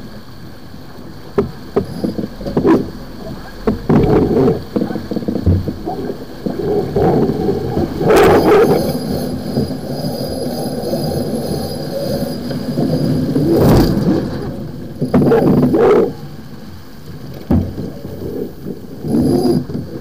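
A sailboat under way in a breeze: wind on the microphone and water along the hull, with irregular knocks and rattles from the crew working lines and winches during a spinnaker hoist. Two louder rushes come about eight and fourteen seconds in.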